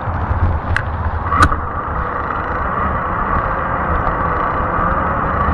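Fat-tire e-bike riding along a paved path: a steady tire and road rumble with a faint steady whine, and two sharp clicks about a second in.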